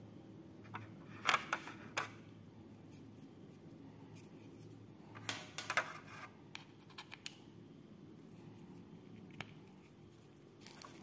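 Sharp plastic clicks and taps from handling a Boseus Bowie EZ 10 earbud charging case with its hinged lid, and the plastic packaging tray. A cluster of clicks comes about a second in and another about five seconds in, with a few single taps after.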